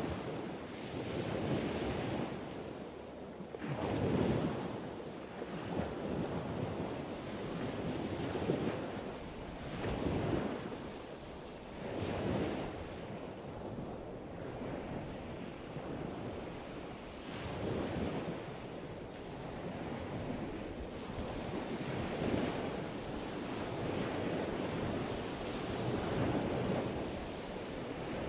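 Sea wind buffeting the microphone along with waves washing against a wharf, a steady rushing noise that swells and fades every two seconds or so.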